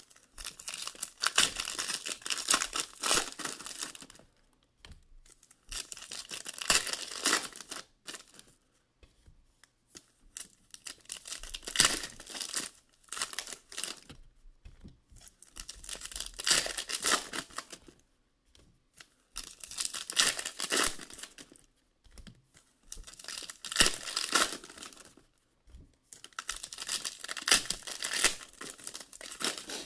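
Foil trading-card packs being torn open and crinkled by hand, one after another, in about seven bursts of tearing and crinkling a few seconds long with short pauses between.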